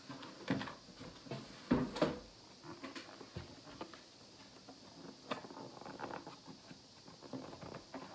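Objects and packaging being handled: a few scattered knocks and taps, the loudest pair about two seconds in, with quieter clatter between.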